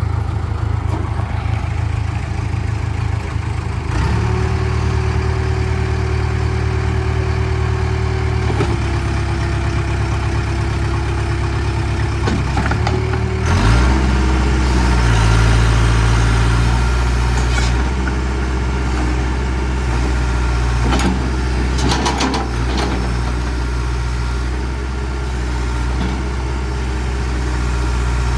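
The 67 hp diesel engine of a 1988 Case 580K loader backhoe runs steadily. From about four seconds in to halfway through, a higher steady whine sits over it. The engine note then shifts and grows slightly louder, and a few sharp metallic clicks follow.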